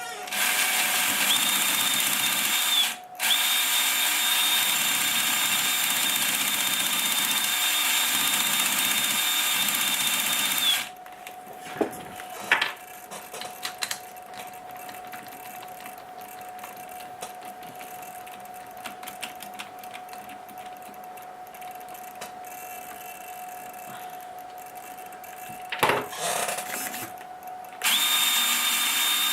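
Electric motor and transmission of an Axial Wraith RC crawler running with a steady whine, cutting out briefly near 3 s, then stopping for a long stretch broken by a few sharp clicks, and starting again near the end. It is run to show a clicking from the transmission when the steering is at full lock.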